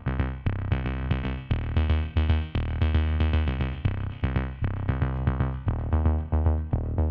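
Electronic background music: synthesizer notes over a drum-machine beat with a strong bass line.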